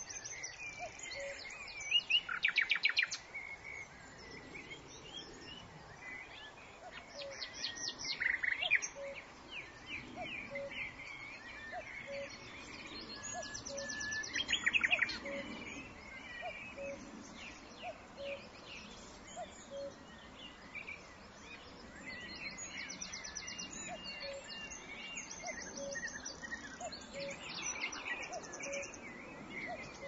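A nightingale singing varied high phrases, with loud rapid trills of repeated notes about 2, 8 and 15 seconds in. Under it a cuckoo repeats its low two-note 'cuck-oo' call steadily, about once a second.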